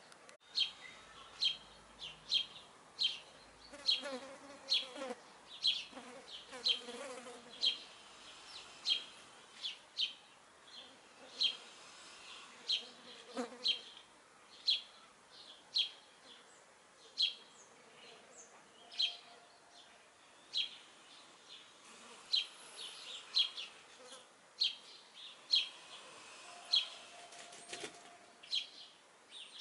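Wasps and flies buzzing faintly around a rotten apple, with a steady series of short, high chirps repeating about one and a half times a second throughout.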